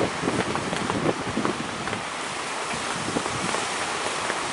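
Wind buffeting the microphone over the steady rush of big breaking waves.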